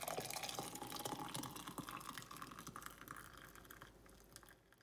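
Hot green tea (kahwa) poured from a saucepan through a fine mesh strainer into a glass mug: liquid splashing and trickling, strongest at first and tapering off as the pour ends.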